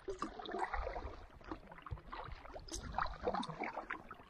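Canoe being paddled: the paddle dips and pulls through the water with irregular splashing and dripping.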